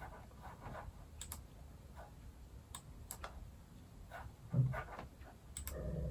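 Faint, irregular clicks of a computer mouse, with a single soft low thump about four and a half seconds in.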